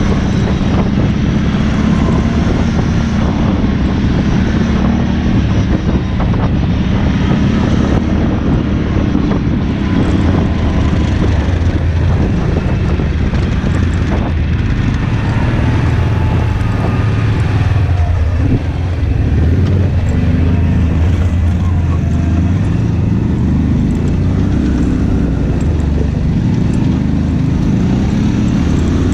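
An engine running steadily and loudly, its low hum shifting down in pitch about halfway through.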